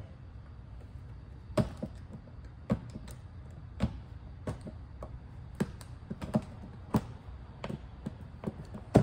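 Box cutter cutting into the hard plastic of a skeleton prop's skull: irregular sharp clicks and snaps, roughly one a second.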